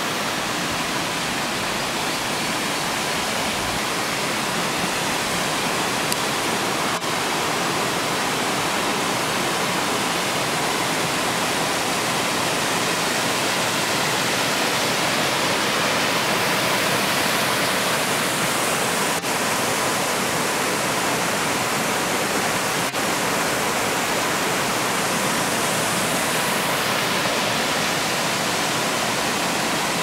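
Steady rush of a small waterfall and the rocky cascade below it, swelling slightly around the middle.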